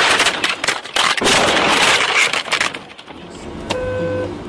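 Loud, distorted crunching and clattering of a vehicle crash for about three seconds. Then a car horn sounds briefly near the end.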